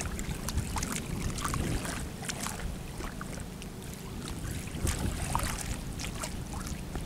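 Pond water lapping, with scattered small splashes and clicks, under a steady rumble of wind on the microphone.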